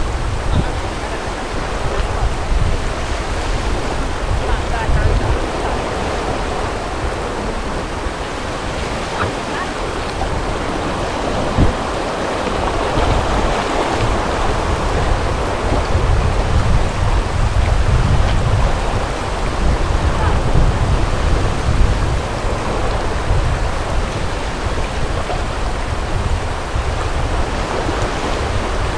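Steady rush of river water around an inflatable raft, with paddle splashes and a low wind rumble on the microphone. The water noise swells for several seconds in the middle.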